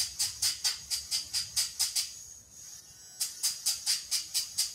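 Hand nail file rasping back and forth on a dog's claw in quick strokes, about five a second, stopping for about a second midway and then starting again.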